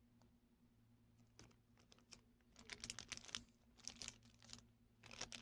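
Plastic packaging bag crinkling and rustling as it is handled, in short bursts of crackles starting a little over halfway through, after near silence.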